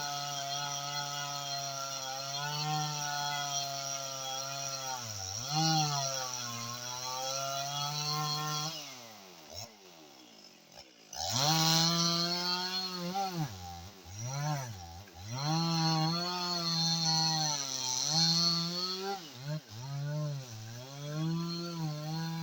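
Husqvarna 55 Rancher two-stroke chainsaw with a 22-inch bar running at full throttle in a cut, its pitch sagging under load several times. About nine seconds in it drops to idle for a couple of seconds, then revs back up and cuts again, the pitch dipping and recovering repeatedly.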